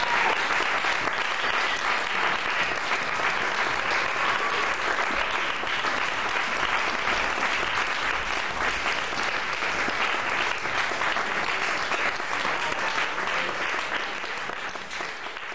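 Theatre audience applauding steadily at the end of the performance, dying away near the end.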